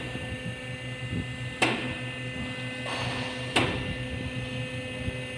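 Handling noises: three sharp clicks about two seconds apart and a brief rustle, over a steady electrical hum.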